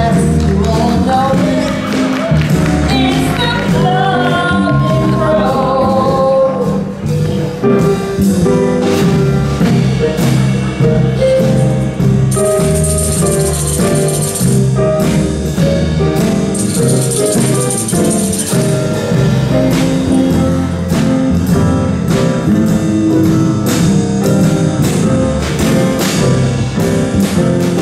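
Music with a steady beat and singing. A high jingle joins in twice, around the middle.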